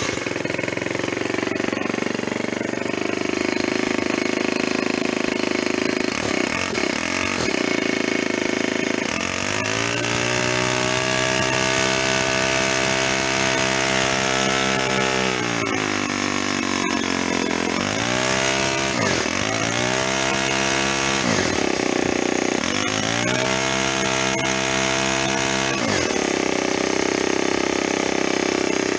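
Black Max 30cc four-stroke string trimmer engine running freshly started on the run setting, its throttle opened and let go several times. The engine speed drops sharply about four times, from about midway on, then climbs back.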